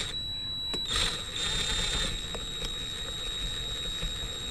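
Cordless drill with a hex bit driving a brake-disc bolt clockwise into the wheel hub. Its motor gives a steady high-pitched whine, with a brief louder burst about a second in.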